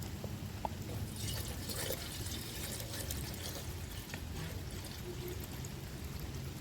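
Liquid being poured for about two seconds, starting about a second in, over a steady patter of rain.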